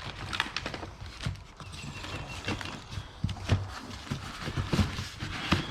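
Irregular knocks, clinks and rattles of hardware being handled: jars and boxes of nails picked up, moved and set down.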